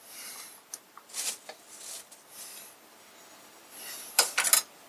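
Kitchen counter handling noises: several short crinkly swishes of plastic cheese packaging being handled, with a few light clicks, then a quick cluster of sharp taps near the end as a tin can is picked up.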